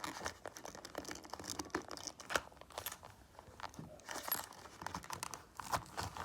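Crinkling and rustling of packaging with irregular small clicks and taps, as items are rummaged through and pulled out of a container.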